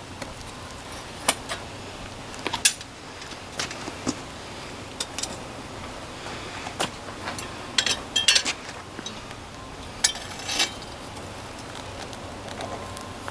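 Scattered metallic clinks and clatters, small hard metal pieces knocking together, over a steady hiss. There is a busier cluster about two thirds of the way in.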